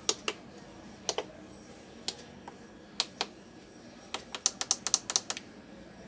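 Control-panel buttons of a Dowell IC-28 induction cooker pressed by finger, giving sharp clicks: a few spaced presses, then a quick run of about ten near the end. No beep answers them: the buttons are not responding, a fault the repairer suspects comes from a failed capacitor.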